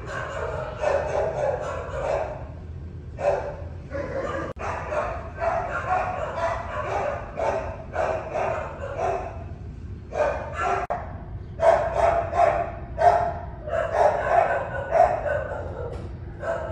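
Shelter dogs barking over and over, in quick, overlapping barks with only brief gaps.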